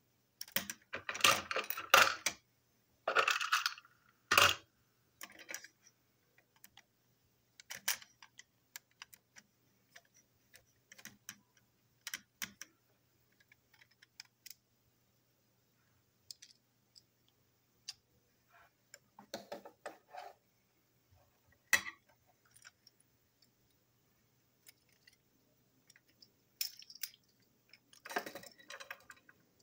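Small plastic and metal toy-train parts clicking and clattering as the chassis is taken apart by hand with a small screwdriver. The loudest clattering comes in two quick clusters in the first few seconds, then scattered single clicks, with another burst of clatter near the end.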